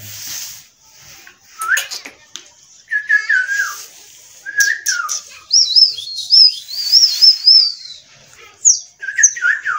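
Pet parrot calling: several short squawks that slide down in pitch, and in the middle a run of high, warbling chirps lasting about two seconds.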